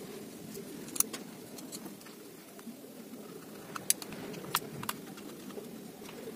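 Small parts of a spinning fishing reel being handled during reassembly: a sharp click about a second in, then three more clicks and taps close together near the middle, over a steady low background rumble.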